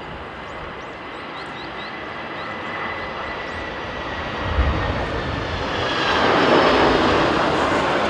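Delta Boeing 767-300ER's twin jet engines on final approach: a steady rumble with a thin whine that falls slightly in pitch and grows much louder as the airliner passes close by. There is a low thump about halfway through.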